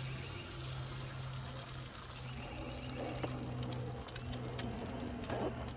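Eggs frying on a hot Blackstone 17-inch griddle, a steady sizzle full of fine crackles and spatters over a low steady hum.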